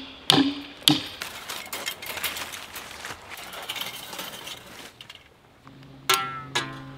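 Fence brace wire and hand tools being worked at a wooden H-brace: two sharp metallic knocks in the first second, then light metal clinks and rattles as the wire is handled and twisted.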